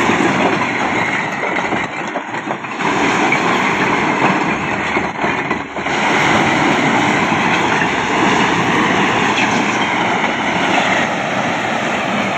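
A load of bricks sliding off a raised tipping trolley and clattering continuously onto the pile, with a tractor engine running underneath.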